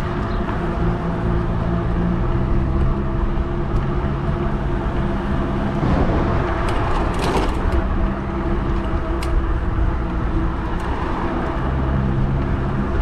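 Modded fat-tire e-bike riding along at a steady speed: the electric motor gives a steady whine, with wind rumble on the microphone. A passing vehicle swells up briefly about six to eight seconds in.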